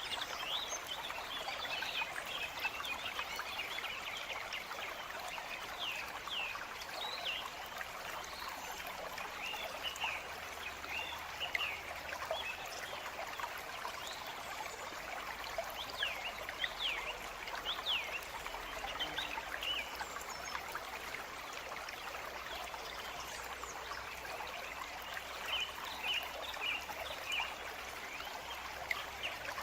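A stream trickling and running steadily, with birds chirping throughout in many short, sharp calls.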